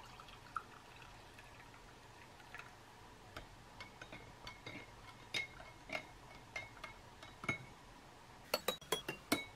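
Plastic spoon stirring coffee in a drinking glass, clinking against the glass again and again with a faint glassy ring. A quick run of sharper taps comes near the end.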